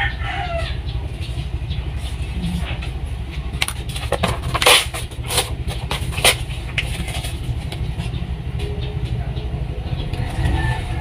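Paper being crumpled and handled by hand, a cluster of crackles and rustles in the middle, over a steady low rumble.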